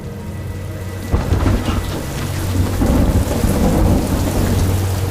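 Thunderstorm: a sudden clap of thunder about a second in, rolling on as a rumble over steady heavy rain.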